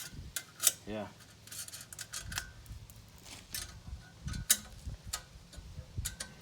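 Irregular metallic clicks and clinks of tools handling the exhaust while its bolt-in silencer insert is being taken out.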